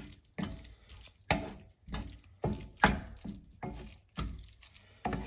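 Spatula scraping and knocking against a frying pan while stirring scrambled eggs, about two strokes a second, to melt cheese into them.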